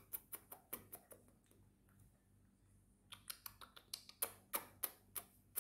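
Typing on a laptop keyboard: runs of light key clicks, about four or five a second, with a pause of about a second and a half in the middle.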